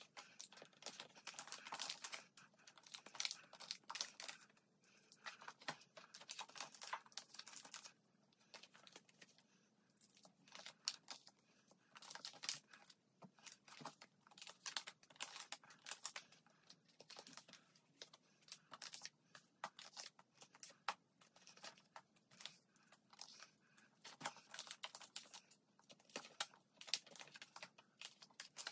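Faint crinkling and rustling of clear plastic binder sleeves as photocards are slid in and out and handled, with many quick small clicks and crackles.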